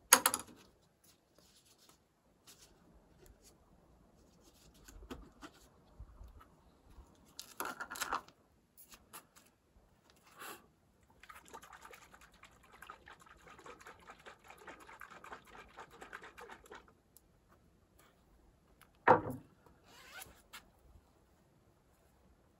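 Hand work on old wooden boards: short spells of scraping and rubbing strokes, a longer steady spell of rubbing through the middle, and two sharp knocks, one right at the start and one near the end.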